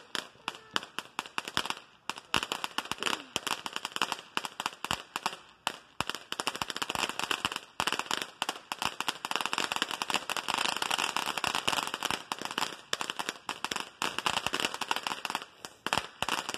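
A firework on the ground crackling and popping rapidly and without a break, over a hiss of spraying sparks, thickest in the middle.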